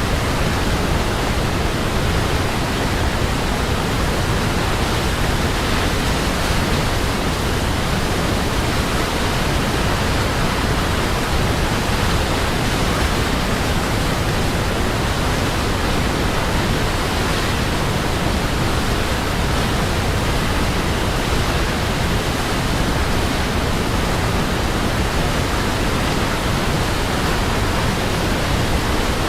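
Waterfall: water falling in a steady, even rush with no change.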